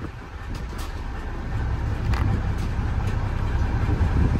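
Boat engine running with a steady low rumble that grows louder about a second and a half in, with a few faint clicks over it.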